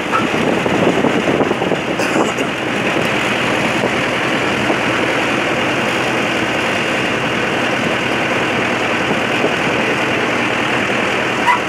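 Tractor engine running steadily, heard from on board while riding along, a dense, even drone.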